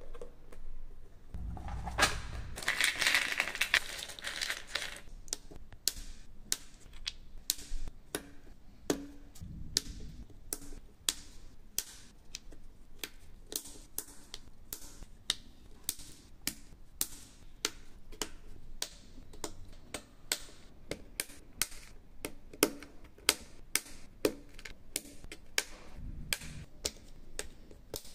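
Small wooden jigsaw puzzle pieces clicking and tapping as they are set down and pressed together on a board, with irregular sharp clicks, often a couple a second. A rustling scrape about two to four seconds in, and a few dull thumps of handling.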